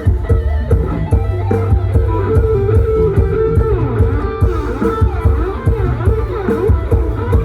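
Band music with a steady beat: an electric guitar lead with bending and sliding notes over bass guitar and drums.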